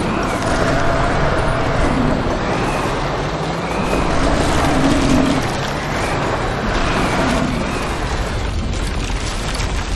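Cartoon bulldozer sound effect: a dense, steady engine rumble as it sets to work on the rocks.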